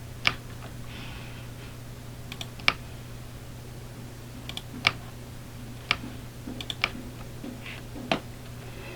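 Sparse, irregular clicks of a computer being worked, single and in quick pairs, over a low steady hum.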